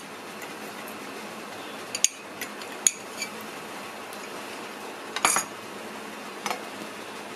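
A few short, light clinks and knocks of a steel spoon, a ceramic mug and a stainless-steel mixer-grinder jar as milk is spooned onto cashews, the loudest a quick cluster about five seconds in, over a steady low hiss.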